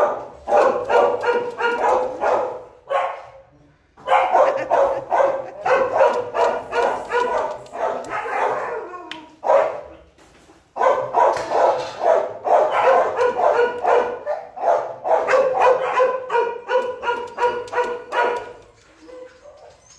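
Shelter dogs in kennels barking hard and fast, several barks a second, with short lulls about three and ten seconds in; the barking dies down near the end.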